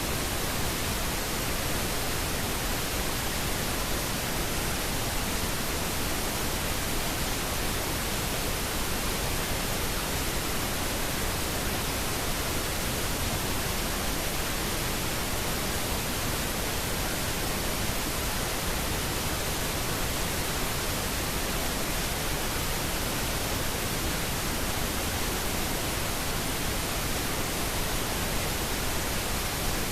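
Steady white-noise static, unchanging throughout, used as a masking bed to hide subliminal spoken affirmations.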